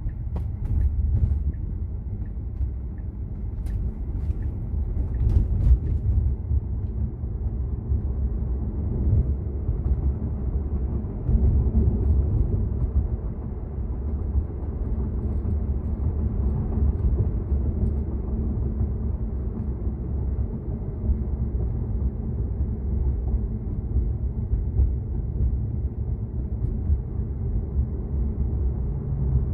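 Steady low road and tyre rumble inside a Tesla electric car cruising on the freeway, with no engine note, only the hum of the road under the wheels. A few faint ticks come in the first several seconds.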